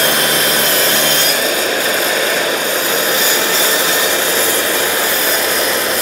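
TICHOP TPS-140BL-B cordless plunge saw running at full speed, its blade plunged into a wooden board and cutting along a guide rail, one side of a square cut-out in the middle of the board. Loud and steady throughout.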